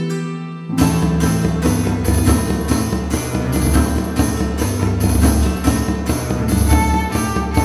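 Background music: sustained plucked notes in the first second, then a full band comes in with drums and a steady beat.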